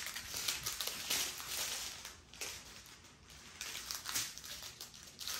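Small plastic bags of diamond-painting drills crinkling and rustling as a strip of them is handled, in irregular bursts that are quieter in the middle.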